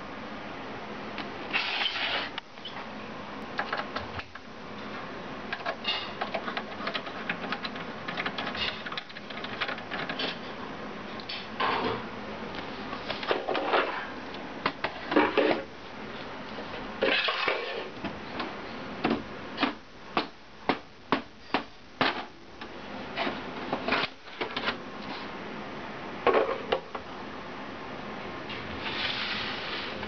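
Hands handling an IBM Aptiva 2196 slim desktop computer case and taking its cover off: scattered clattering knocks and clicks of plastic and sheet steel, with a run of evenly spaced clicks about two a second a little past the middle.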